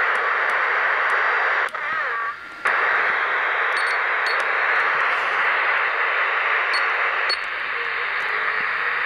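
Albrecht AE 485 S 10-metre AM/FM/SSB transceiver hissing with receiver static through its speaker as it is stepped across frequencies. The hiss drops out briefly about two seconds in, and its tone changes near the end as the set is switched from FM to upper sideband. A few short faint pips sound as the buttons are pressed.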